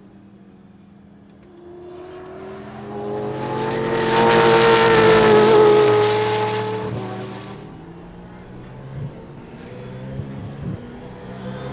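Supercar race cars passing at speed, their engines running at steady high revs. The sound swells to a peak about four to six seconds in as the cars go by, fades, then builds again near the end as another car approaches.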